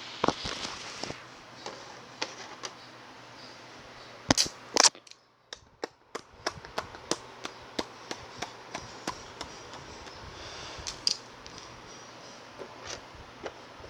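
Crunchy eating sounds: a string of sharp cracks and clicks, with a loud cluster of crunches about four seconds in, a short pause, then a run of quick clicks.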